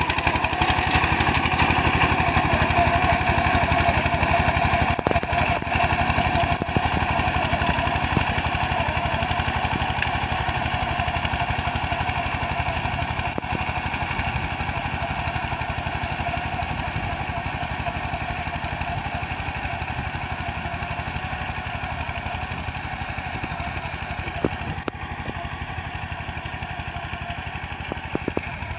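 Forte 240 minitractor's engine running steadily under load while it drives a rear rotary tiller through garden soil, gradually growing fainter as the tractor moves away.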